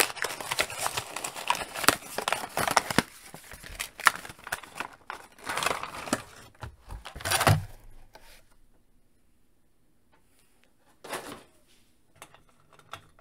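Clear plastic blister being ripped off a cardboard action-figure card and handled: a dense run of tearing, crackling and crinkling for about seven and a half seconds. Then it goes quieter, with one short rustle about eleven seconds in.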